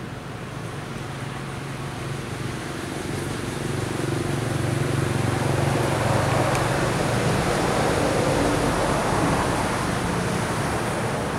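A motor vehicle's engine and tyres running past in the background, a low steady hum with noise over it. It swells over the first six seconds or so, then eases off a little near the end.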